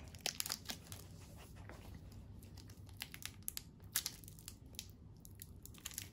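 Plastic wrapper of a mini Kit Kat crinkling and crackling as it is pulled at and torn open, a wrapper that is hard to open. Irregular sharp crackles throughout, with a louder crack about four seconds in.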